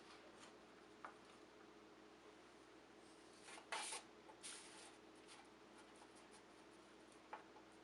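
Near silence broken by a few faint scrapes and taps of a cookie cutter and hands working rolled shortbread dough on a floured board. The loudest is a brief brushing scrape about three and a half seconds in.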